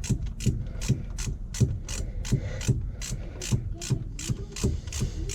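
Socket ratchet being worked on a bolt: a steady run of sharp pawl clicks, close to three a second, each with a dull knock.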